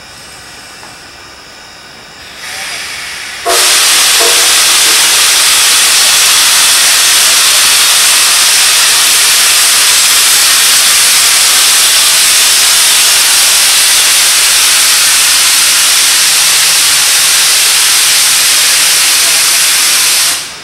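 Safety valve of No. 90, a 2-10-0 steam locomotive, lifting. A softer hiss starts about two seconds in, then a sudden loud, steady hiss of escaping steam holds for about seventeen seconds and cuts off sharply near the end. This is the boiler at full pressure blowing off surplus steam.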